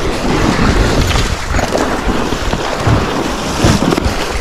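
Wind buffeting the microphone together with water splashing as a hooked musky thrashes at the surface beside the boat.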